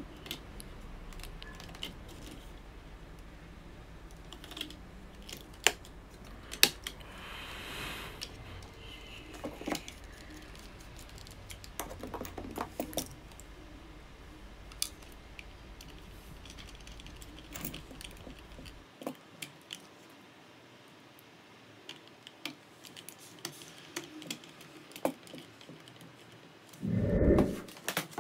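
Scattered small clicks and taps of hand work on a DJI Mavic Pro drone: screws being driven with a small screwdriver and the plastic body handled. A faint low hum stops about two-thirds of the way in, and a louder thump comes near the end.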